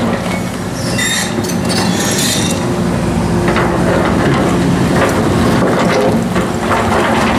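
Tracked mini excavator's engine running steadily while its steel bucket digs and scrapes through stone and brick rubble. Stones clatter and grind against the bucket, most loudly about a second in and again near the end.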